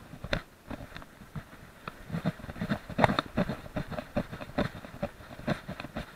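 Action camera in its housing on a dog's chest harness, knocking and rubbing against the dog's fur and harness as the dog moves: an irregular run of close-up bumps and rustles, several a second, loudest about three seconds in.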